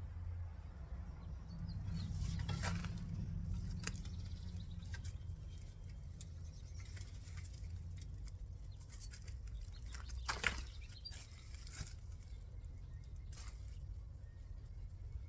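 Soil being dug through by hand in a potato bed: scattered rustling and patter of dirt with a few sharper clicks, the loudest just past the middle, over a low steady rumble.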